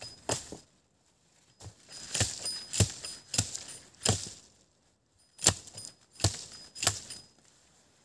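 Axe chopping into wood: about nine sharp strikes at uneven intervals, some leaving a brief high metallic ring.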